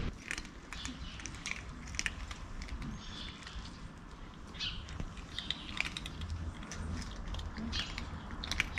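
Cats crunching dry kibble, a steady run of irregular short crunches.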